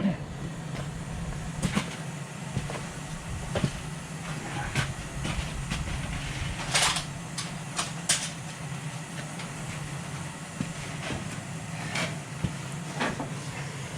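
Scattered light knocks and clinks of metal parts being handled and picked up, about ten in all, one longer rattle about halfway, over a steady low hum.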